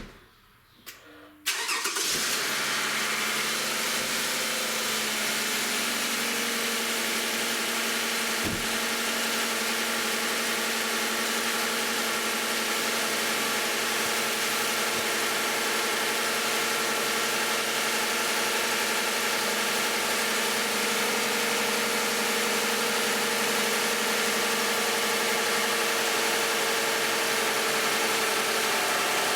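Toyota 2GR-FE 3.5-litre V6 in a 2010 Camry cold-starting about a second and a half in, then idling steadily. It is running on thinner 0W-20 oil instead of the specified 5W-30.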